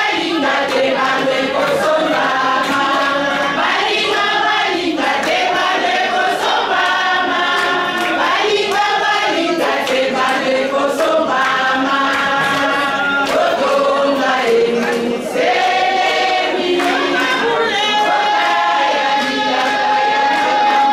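A group of women singing a church song together in chorus, without a break.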